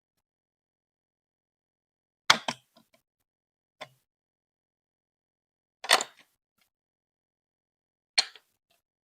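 Hard plastic clacks on Lego Duplo bricks: four sharp knocks spaced a second or two apart, each followed by a few small rattles.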